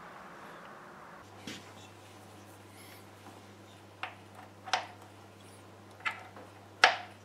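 A few sharp clicks and knocks, about five spaced over several seconds with the loudest near the end, as a speaker cable's plug is pushed into and fitted on the binding posts on the back of a bookshelf speaker. A steady low hum sits underneath.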